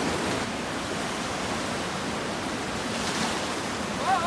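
Swollen, muddy river in flood rushing steadily past, a continuous noise of fast water, the river running high after heavy overnight rain.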